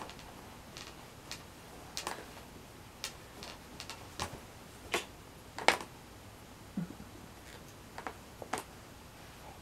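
Scattered light clicks and taps at uneven spacing, roughly one a second, with a sharper knock a little before six seconds in.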